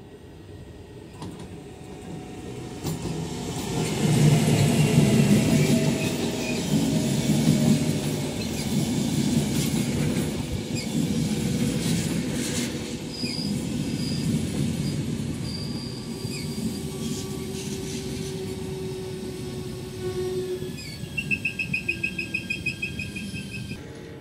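Electric-locomotive-hauled passenger train passing close by at a station platform: the sound grows from about two seconds in and is loudest as the locomotive goes by, then the coaches roll past with wheel noise and several high wheel squeals. Near the end a fast-pulsing high squeal.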